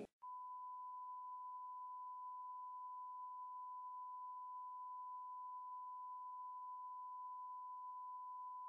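Steady electronic beep: a single pure tone, like a censor bleep laid over the sound track, cutting in sharply just after a brief drop to silence and holding unchanged.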